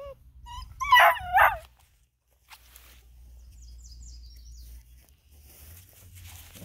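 Black and tan coonhound puppy crying: a few short rising whines, then two loud, wavering yelps about a second in.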